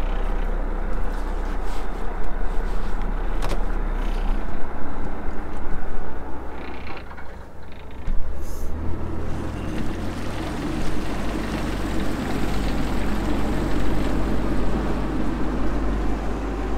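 Fishing boat's engine running steadily underway, with a few sharp clicks and knocks in the first half. About halfway through, the low drone grows heavier and fuller.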